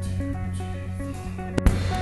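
Band music: a repeating picked guitar figure over a steady bass line, with a sharp drum and cymbal hit near the end.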